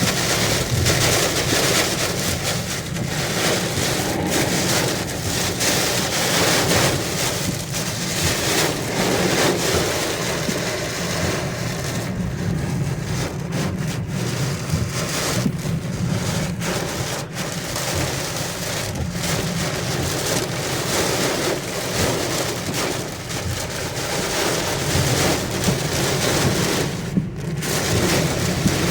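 Heavy rain and strong wind in a violent storm: a loud, steady rushing noise.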